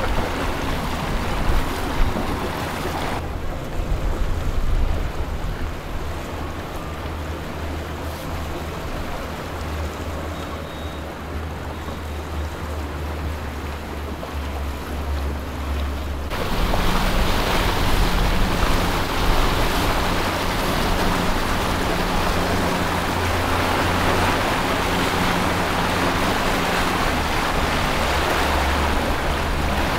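Motorboat engines running at slow cruising speed, a steady low hum under water wash and wind noise on the microphone. The sound changes abruptly twice, about three seconds in and again about halfway through.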